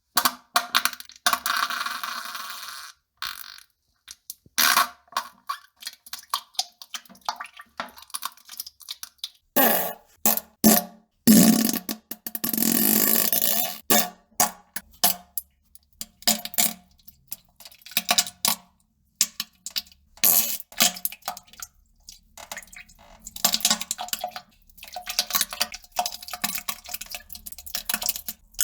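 A long run of fart and bowel-movement sounds: many short, irregular, broken bursts, with two longer hissing ones near the start and about halfway through.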